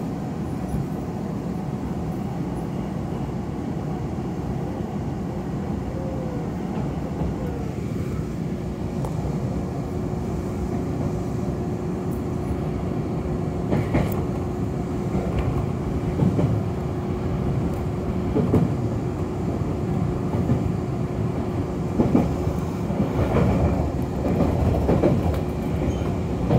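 Nankai Koya Line electric train (set 6510F) running on the rails: a steady rumble with a steady hum, and single wheel knocks from about halfway on that come more often toward the end.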